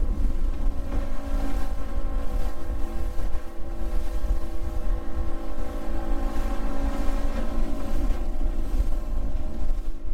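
A 50-horsepower outboard motor running steadily at cruising speed, its engine tone holding a constant pitch, with heavy wind buffeting the microphone.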